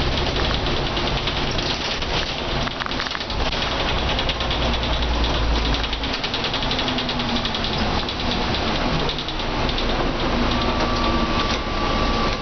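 Mercedes-Benz O405N bus heard from inside near the front: its rear-mounted diesel engine and ZF automatic gearbox pulling under kickdown, the engine note rising and falling a few times, under a steady hiss of rain and wet road. A thin steady whine comes in near the end.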